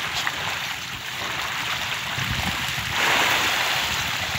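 Fish splashing and churning at the surface of a net-pen fish cage as they take feed, with a louder rush of splashing about three seconds in.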